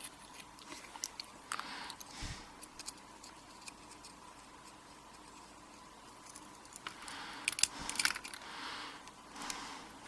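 Small metal lock parts and tools clicking and scraping as the pins and springs are worked out of a pin-tumbler padlock core; the clicks come sparse and faint, with a busier, louder patch about three-quarters of the way through.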